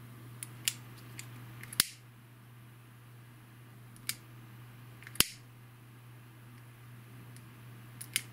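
A disposable lighter's flame held to fluorocarbon fishing line: a scattering of sharp clicks and snaps, two louder ones about two and five seconds in, over a faint steady low hum.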